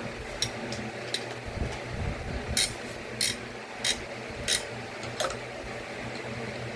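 A series of about five short scraping clicks, roughly one every half second to second, from hardware being handled and fitted into a PC case, over a low steady hum.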